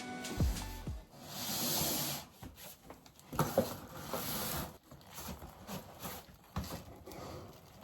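Background music fades out about a second in, followed by rustling and rubbing with a few light knocks as objects are handled.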